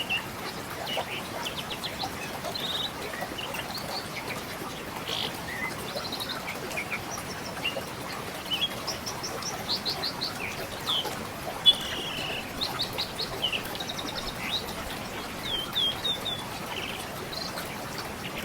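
Songbirds chirping and trilling in quick runs of notes over the steady rush of a flowing river, with one loud, close chirp near the middle.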